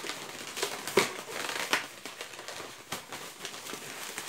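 Inflated latex modelling balloons rubbing and squeaking against each other and the hands as they are twisted and wrapped around one another, with several short, irregular squeaks and creaks.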